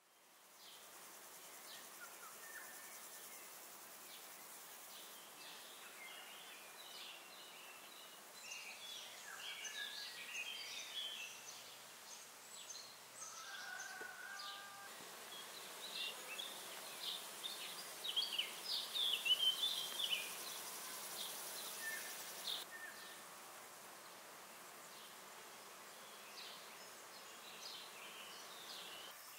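Birds chirping and twittering in short scattered calls, busiest about a third of the way in and again around two-thirds through, over a faint steady high hiss.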